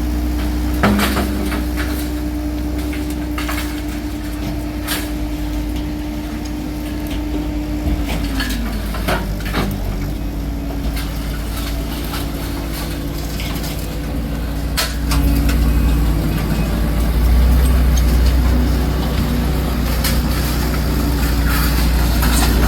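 Heavy work truck's engine running, its pitch dropping about eight seconds in and growing louder about fifteen seconds in, with scattered metallic clinks and knocks of debris being handled.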